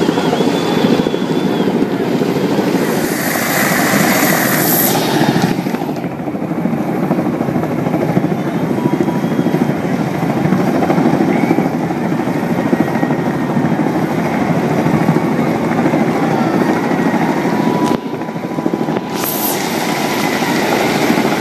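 Tandem-rotor H-46 Sea Knight helicopter hovering low overhead, its twin rotors giving a steady, dense chopping beat over the turbine noise.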